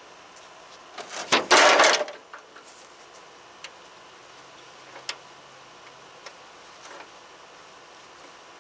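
A steel lawn-mower deck being tipped down and laid flat, a scrape and clatter of sheet metal lasting about a second, starting about a second in. A few light metallic clicks follow as hardware is handled at the newly fitted blade spindle.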